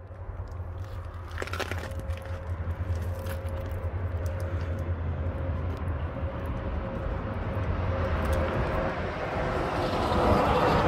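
Highway traffic going by: a steady low rumble that grows louder toward the end as a vehicle approaches.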